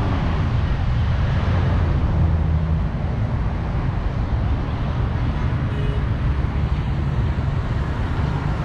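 Steady road traffic noise with a deep, constant rumble.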